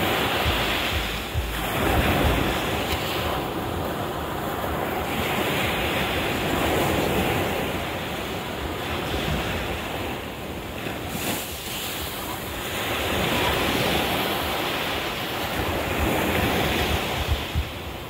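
Ocean surf breaking and washing up a sandy beach, swelling and fading every few seconds, with wind buffeting the microphone at times.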